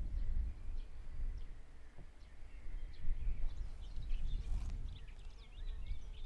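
Birds chirping, with short calls scattered through and busiest about four to five seconds in, over a steady low rumble of outdoor background noise.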